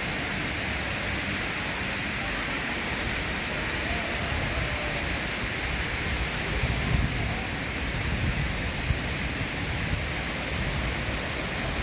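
Steady rushing hiss of a waterfall's falling water, with heavier low rumbling in the second half.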